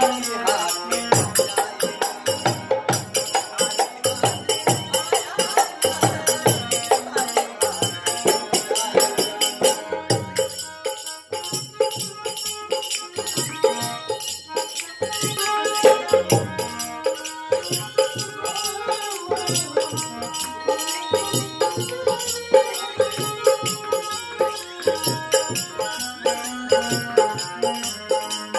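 Live Indian folk music in the nirgun style: harmonium with a fast, steady dholak beat and jingling hand percussion.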